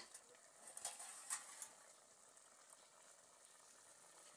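Faint bubbling sizzle of a pot of okro soup simmering over a firewood fire, with a few light clicks in the first second and a half.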